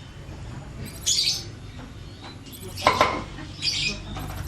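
A faulty 14-inch Digitec CRT TV makes short, high chirps every second or two while its standby light blinks. The repairer traces the fault to the flyback transformer.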